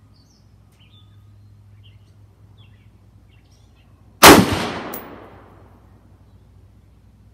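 A single AR-15 rifle shot about four seconds in: one sharp crack with an echoing tail that dies away over about a second, followed by a brief faint click. Birds chirp faintly before and after.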